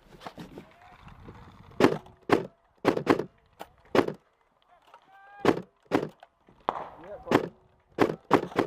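Airsoft rifle firing single shots: about a dozen sharp cracks at irregular intervals, some in quick pairs, starting about two seconds in.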